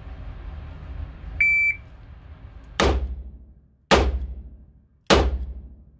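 Shot-timer start beep, then three shots from a Taurus 889 .38 Special revolver about a second apart, each with a long echoing tail from the indoor range.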